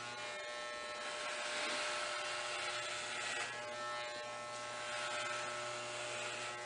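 Corded electric hair clippers buzzing steadily while cutting a head of hair down to a buzz cut. The buzz swells and eases slightly every second or two as the clippers pass over the scalp.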